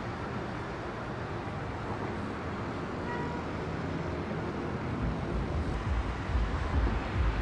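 Steady hiss of distant city traffic. A faint short tone comes about three seconds in. From about five seconds in, wind buffets the microphone with uneven low rumbling that grows louder.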